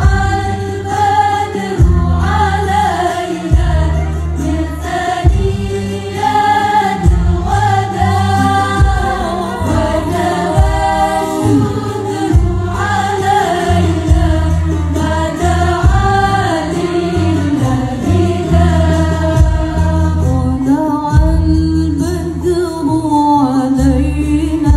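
A choir of young women singing a melody together through handheld microphones, over an accompaniment with a deep bass line that changes note about once a second.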